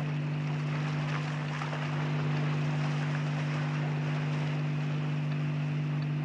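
Steady low machinery hum, two deep tones held without change, under an even rushing hiss: the ambient drone of a film soundtrack's underwater base.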